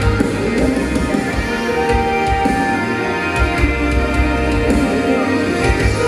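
Instrumental passage of a Spanish-language Christian worship song: band music with no singing.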